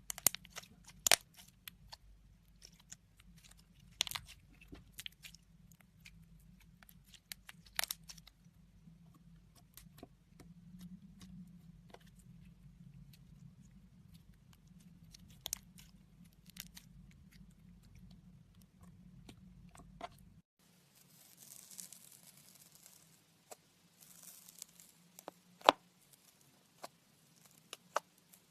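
Slime being handled by hand, pressed and stretched, giving irregular sticky clicks, pops and crackles.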